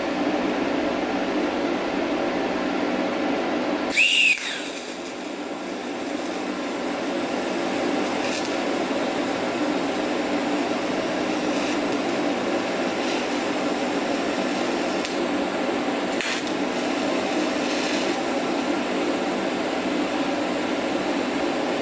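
Steady fan-like noise with a low hum. About four seconds in, a short sharp sound falls in pitch, the noise drops briefly, and then it comes back. A few faint clicks follow.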